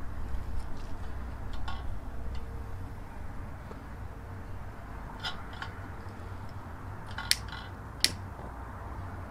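Small brass spirit burners and their metal stands handled and set down on a stone slab: a few light clicks and clinks, the two sharpest about seven and eight seconds in, over a steady low rumble.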